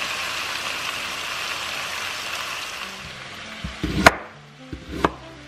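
Seasoned chicken thighs sizzling steadily as they sear in oil in a stainless pan for about three seconds. Then a chef's knife cuts through a red onion on a cutting board: two sharp chops about a second apart.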